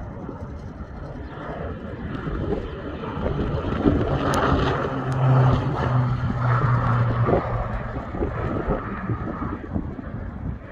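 Air Tractor 802 single-engine turboprop flying low past. Its engine and propeller build to loudest a few seconds in, the drone drops in pitch as it goes by, then fades away.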